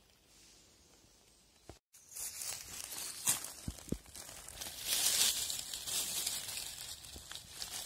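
Dry fallen beech leaves rustling and crackling as a hand pushes them aside to uncover a porcini mushroom. The rustling starts about two seconds in and is loudest around five seconds in.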